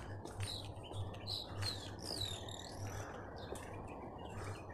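Birds chirping: a series of short whistled calls that sweep up and down in pitch, one longer wavering call in the middle, over a faint low hum.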